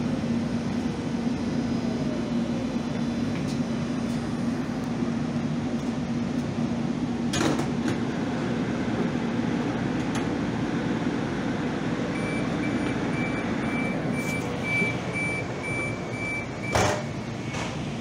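Steady running noise of a Calgary Transit vehicle with a constant low hum, a couple of sharp knocks, and in the second half a repeating high beep.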